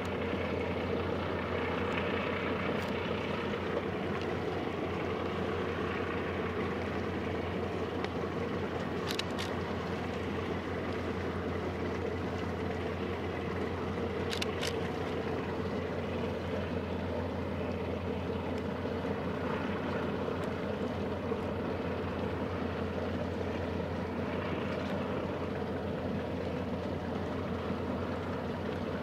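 Steady low drone of ship engines from tugboats and a large ferry manoeuvring, with two brief sharp clicks about a third of the way and halfway through.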